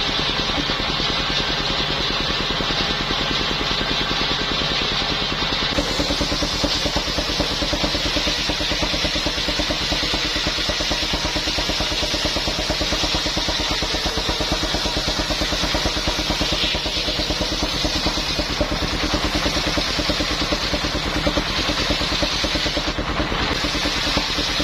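Engine-driven circular sawmill running steadily with a fast, even engine pulse. About six seconds in the sound brightens and thickens, and it holds that way.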